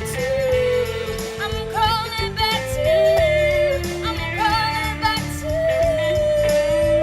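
Music: a woman singing long held notes with vibrato and no clear words, moving between notes every second or two.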